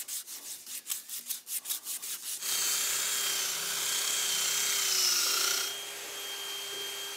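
Quick back-and-forth scrubbing strokes on a metal coolant pipe held in a vise, about four to five a second. About two and a half seconds in, a cordless drill starts spinning a brush attachment inside a pipe, a steady whirring scour that eases off a little near the end.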